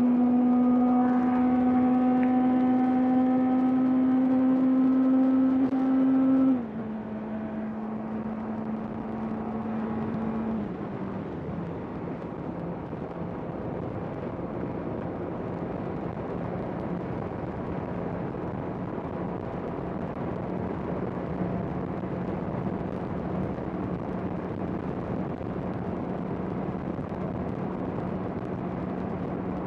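Honda CBR650R's inline-four engine running at steady high revs. About six and a half seconds in its note drops suddenly in pitch and volume, steps down a little further a few seconds later, then holds a steady, lower note over a constant rush of noise.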